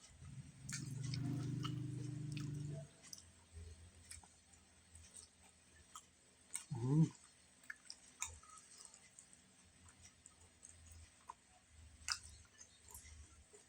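Close-up eating sounds: chewing with small wet mouth clicks scattered throughout. A steady low hum lasts a couple of seconds near the start, and a brief rising pitched sound comes about seven seconds in.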